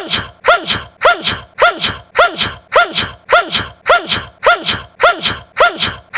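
A young man's short, voiced sneeze looped over and over, the same sneeze a little under twice a second. Each sneeze starts suddenly and falls in pitch, with a breathy hiss.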